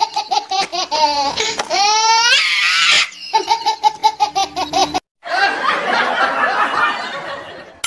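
Laughter sound effect: a rhythmic belly laugh with a rising squeal around two seconds in. After a hard cut about five seconds in, different, denser laughter follows.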